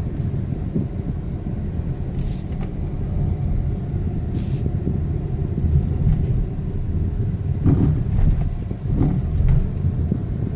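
Car under way, a steady low rumble of engine and road, on a car that whines when accelerating. A few short hissy knocks are heard along the way.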